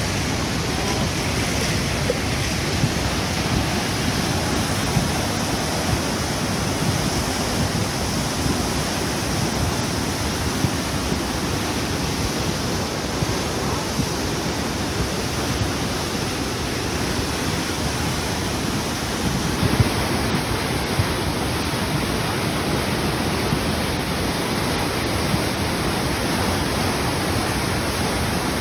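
Flash-flood water rushing and churning over rocks in a fast, swollen torrent: a steady, loud rush.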